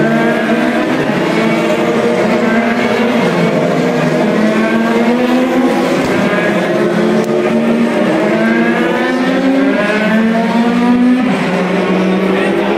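Indy cars' twin-turbo V6 engines passing and accelerating under caution, several engine notes overlapping. The pitch climbs for several seconds, drops sharply about halfway through, then climbs again and drops near the end.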